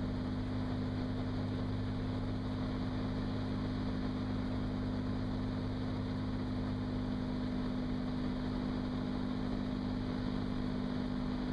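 Cirrus SR22's 310-horsepower six-cylinder piston engine and propeller drone steadily as heard inside the cockpit in flight, with an even rush of airflow.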